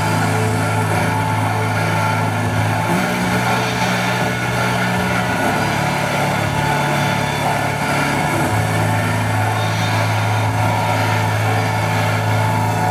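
Dance piece's electronic soundtrack: a dense, steady drone of rushing noise over low held notes that change pitch a few times, at about 3, 5 and 8 seconds in.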